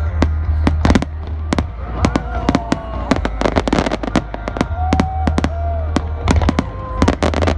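Aerial fireworks display: a rapid, dense run of shell bursts, with sharp bangs several a second over a steady low rumble.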